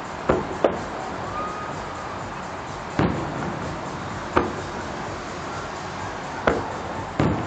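Distant aerial fireworks shells bursting: six sharp booms, two close together at the start and then single ones every one to two seconds, each trailing off in a short echoing rumble over a steady background hiss.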